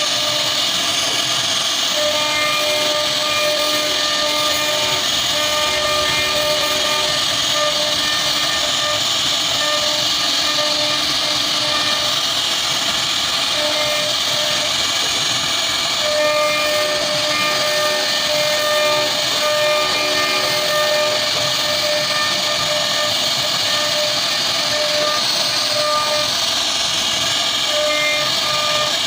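CNC wood router carving: a steady high spindle-and-cutter noise, with a pitched motor whine that switches on and off every second or so as the machine moves.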